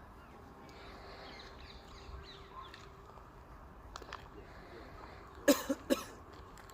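Birds calling outdoors: faint chirps over a low background hum, then three loud calls in quick succession about five and a half seconds in.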